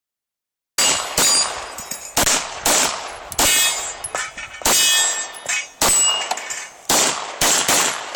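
Rifle shots fired in quick succession, about ten in eight seconds, each followed by a metallic ring.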